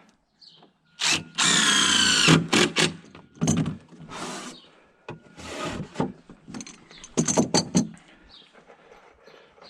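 Cordless power drill driving screws into wooden deck boards: one long run about a second in, then several shorter bursts.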